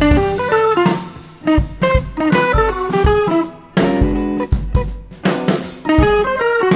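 Background music: quick runs of plucked guitar notes over a drum kit beat.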